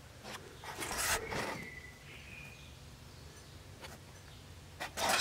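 Faint rustling and scuffing from someone moving about with the camera, with a brief faint whistle-like tone about two seconds in and a single click near four seconds.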